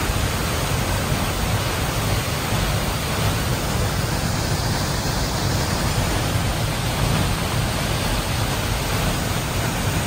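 Steady, loud rush of La Paz Waterfall's tall cascade pouring into its plunge pool, an unbroken wash of water noise with a heavy low rumble.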